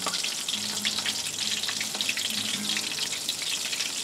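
Guacamole-and-flour-coated chicken deep-frying in hot oil: a steady, dense crackle and bubbling of the oil.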